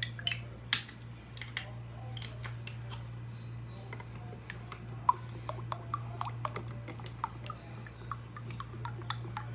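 Ghee being spooned into a kadhai: a few sharp taps and clicks of a spoon against the pan in the first couple of seconds, then a scatter of small quick clicks and ticks, over a steady low hum.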